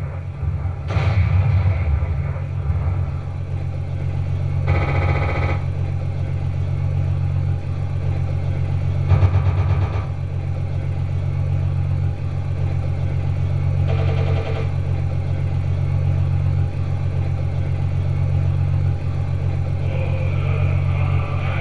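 Benedini sound unit in a 1/6 scale Big Tanks King Tiger model tank playing a simulated tank engine idle through its speaker: a steady low rumble. Short bursts of other tones sound about 5, 9 and 14 seconds in.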